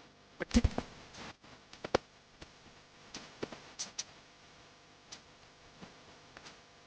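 Scattered short clicks and taps over a quiet room background, with the loudest cluster about half a second in and lighter ticks spread through the rest.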